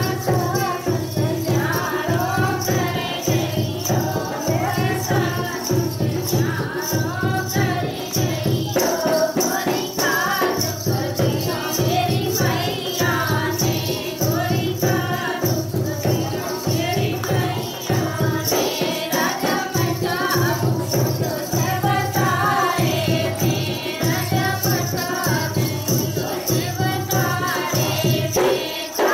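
Women singing a rural Indian folk dance song (dehati nach geet) over a steady, even drum beat that runs without a break.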